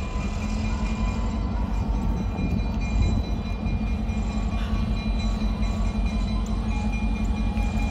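EMD GP9R diesel locomotive approaching slowly with a train of tank cars, its 16-cylinder EMD 567 diesel engine running with a steady low rumble that grows a little louder as it nears.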